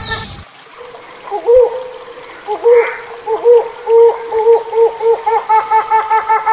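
Hornbill calls. A rapid call series cuts off half a second in. After a short gap, separate bending notes begin, coming faster and faster until, from about five seconds in, they run as a quick, even series of about four or five notes a second.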